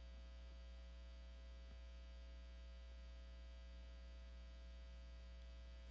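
Near silence apart from a steady low electrical hum, like mains hum, on the audio feed.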